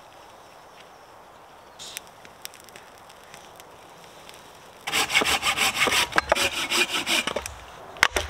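Hand saw cutting through wood: a quick run of rapid rasping strokes that starts abruptly about five seconds in and lasts roughly two and a half seconds, after a stretch of faint background.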